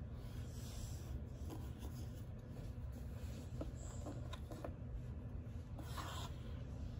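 Cardboard jigsaw puzzle pieces being slid and set down on a hard tabletop: soft rubbing with a few light clicks, and a short scrape about six seconds in, over a low steady hum.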